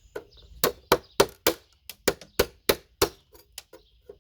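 Hammer striking a chisel-like prying tool wedged under RAM slots on a motherboard, a quick series of sharp metallic blows about three a second, knocking the slots off the board.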